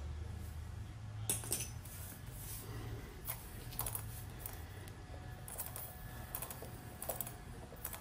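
Steel tire-plug reamer being twisted and worked out of a puncture in a tire: irregular small metallic clicks and scrapes, some dozen over the few seconds, over a low steady hum.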